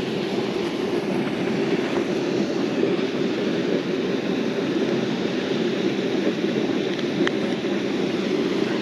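A loud, steady drone of noise, unchanging throughout, with a couple of faint ticks about seven seconds in.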